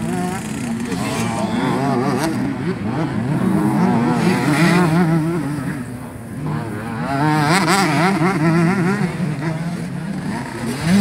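Several two-stroke motocross bikes racing on the track, their engines revving up and down over and over, growing louder about four seconds in and again near eight seconds, with a brief drop between.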